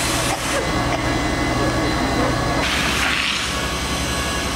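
Steady low rumble of a fire engine's diesel engine running, with two short bursts of hiss, one at the start and one about three seconds in.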